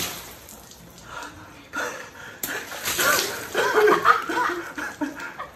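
A man and a boy laughing hard, the laughter breaking out about two seconds in after a water balloon has burst over the man's head.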